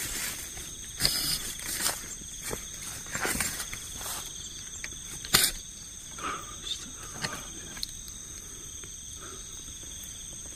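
Night insects, crickets, trilling steadily in several high continuous tones. Over them come scattered rustles and snaps of movement in the undergrowth, the sharpest about five seconds in.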